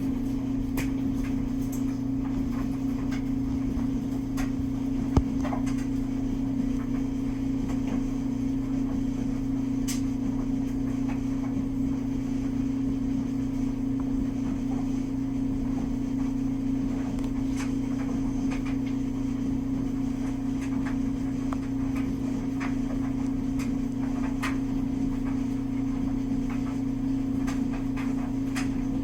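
A steady low mechanical hum, with faint scattered ticks and one sharp tap about five seconds in.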